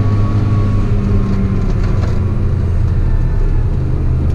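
Tractor engine running steadily with an even, low hum.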